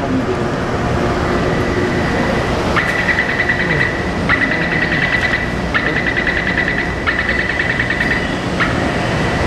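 Taipei Metro train door-closing warning beeping: a high, rapidly pulsing beep in four bursts of about a second each and a short fifth, over the steady hum of the train standing at the platform.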